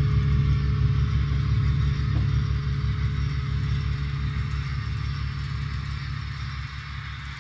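Simulated diesel prime-mover sound from a sound-equipped Broadway Limited Imports model locomotive, played through its subwoofer as a deep, steady engine rumble while the train runs at speed step 37. The rumble fades gradually toward the end.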